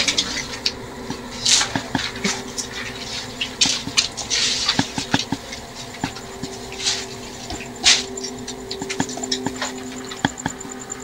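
Footsteps, clothing rustle and handling knocks as people move slowly through a small, bare room, with a faint steady hum underneath.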